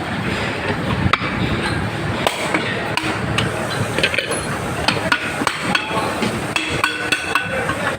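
Irregular sharp knocks and taps from hand-tool work on fan hardware, several a second at times, some of the later ones with a short metallic ring.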